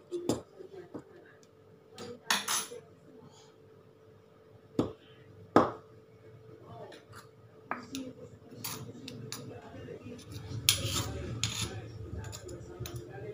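Stone pestle knocking in a stone mortar, with a metal spoon clinking against the stone. Irregular knocks, a few sharp loud ones, come more often in the second half with some grinding rub near the end.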